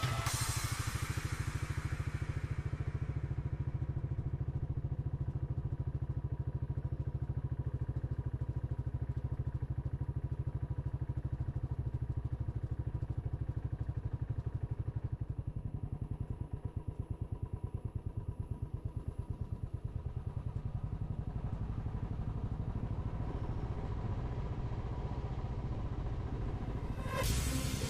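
A vehicle's engine running steadily at low speed, heard from on board, with a fast, even throb; it is a little quieter for a few seconds in the middle.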